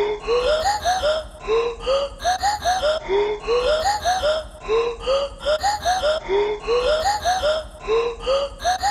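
Intro music: a looped phrase of short, rising, voice-like notes that climbs in steps and repeats about every second and a half at a steady tempo.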